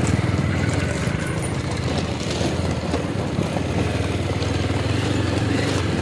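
Motorcycle engine running with a steady note while riding, with wind and tyre noise over a dirt and gravel road.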